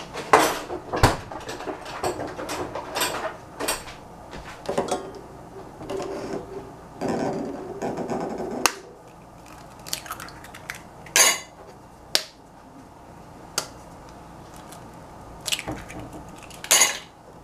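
Kitchen clatter from a stainless steel saucepan: a series of sharp, separate knocks and clinks, including eggs tapped and cracked against the pan's rim and dropped in.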